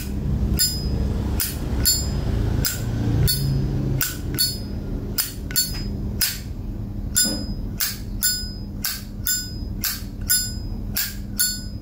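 Vintage Zippo lighter's hinged brass lid snapped open and shut over and over: a string of sharp metallic clicks with a short ring, about two a second and a little quicker in the second half.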